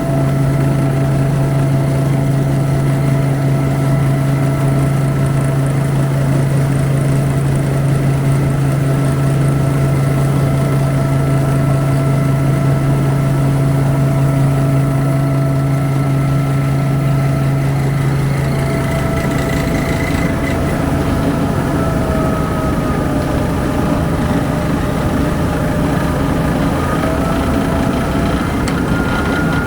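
Kaneko KMP-400JX rice huller running steadily, with all its bearings newly replaced, giving a continuous low hum with a few steady higher tones. About two-thirds of the way in, the tones shift slightly and waver in pitch.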